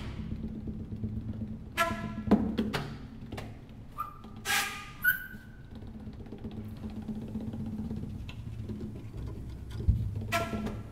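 Sparse live music: a low steady drone with scattered percussive hits and short pitched notes.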